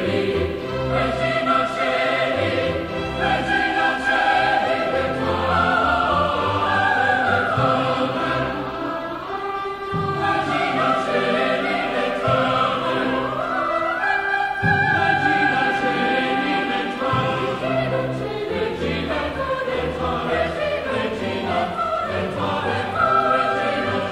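Church choir singing a piece of sacred classical music with orchestral accompaniment, the voices held in long, sustained lines.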